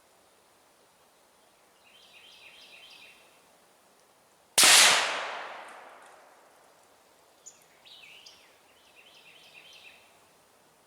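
A single rifle shot from a Ruger American Ranch bolt-action in 7.62x39 with a muzzle brake, a little under halfway in. Its report echoes and dies away over about a second and a half. A bird sings in short runs of quick notes before and after the shot.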